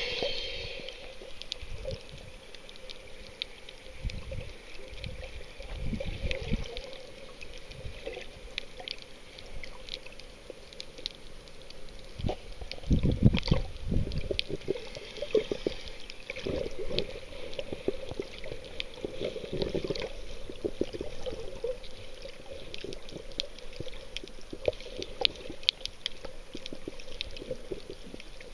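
Sound picked up by a camera held underwater: water sloshing and gurgling against the housing, with a steady crackle of sharp clicks throughout. Heavy low thumps come about four to six seconds in and loudest around thirteen seconds in.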